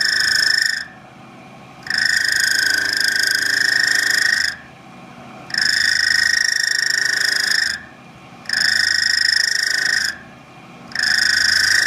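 Milling machine cutter chattering as it cuts into a valve seat, a high-pitched ringing squeal that comes in stretches of one to three seconds with short pauses between. The chatter comes from the cutter pressing against the seat.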